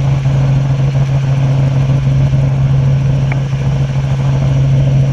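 Robinson R44 helicopter in flight, heard from inside the cabin: a steady, loud drone of piston engine and rotor with a strong low hum.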